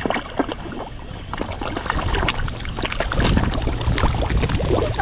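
A crowd of feeding carp thrashing at the water's surface, a dense patter of small splashes and slaps as feed is thrown in, with a low rumble in the second half.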